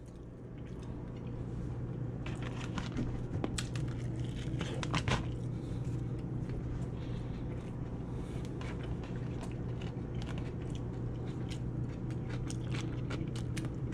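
A person chewing a mouthful of food close to the microphone, with irregular wet crunches and mouth clicks, over a steady low hum.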